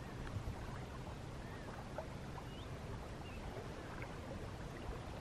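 Quiet outdoor background: a steady low rumble, with a few faint, short bird chirps over it.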